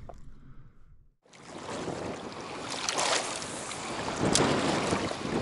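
Strong wind buffeting the camera microphone: a harsh, rushing noise that starts after a brief dropout about a second in and grows louder in gusts toward the end.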